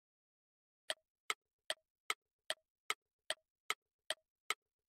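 Clock-ticking sound effect for a quiz countdown timer: about ten short ticks, roughly two and a half a second, starting about a second in, counting down the thinking time before the answer is read.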